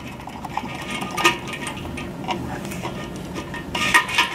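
Light clicks and rattles of the antenna's metal mounting bracket and hood being handled as the rubber gasket is fitted onto the hood, with a quick run of clicks near the end.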